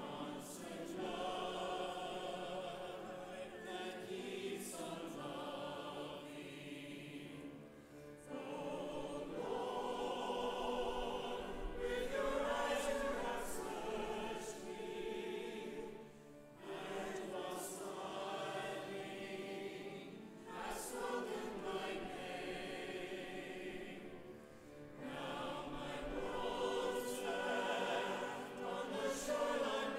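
Congregation singing a hymn together, in long sung lines with brief pauses between phrases.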